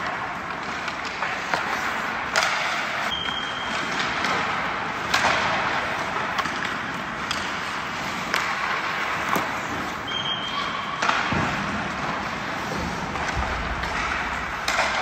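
Ice hockey skates scraping and carving across rink ice, with sharp cracks of pucks off sticks and boards every couple of seconds. Twice a short high ringing ping sounds.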